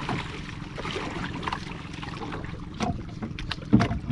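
Water splashing and sloshing against a small outrigger fishing boat, with wind on the microphone and several sharp knocks of the boat and gear being handled, the loudest about three and a half seconds in.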